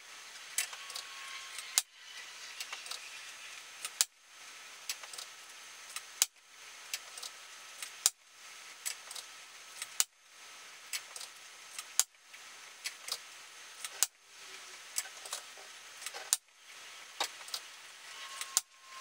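Sharp clicks and small metallic clinks from a Daystate Wolverine R PCP air rifle being loaded and handled, heard in short pieces that break off about every two seconds. Each piece opens with a louder sharp click.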